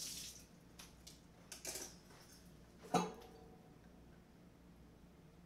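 Kitchen tap water running briefly and shutting off, then a few light clicks of handling and one sharp clink with a short ring about three seconds in.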